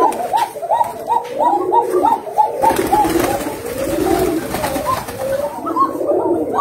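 A flock of Koka pigeons calling together: many overlapping cooing calls in quick succession, with a brief burst of rustling noise about three seconds in.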